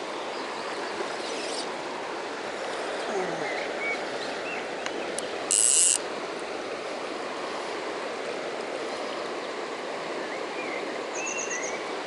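Shallow mountain stream running over a gravel riffle: a steady rush of water, with small birds chirping now and then and a short trill near the end. About halfway in, a loud, high buzzing sound lasts half a second.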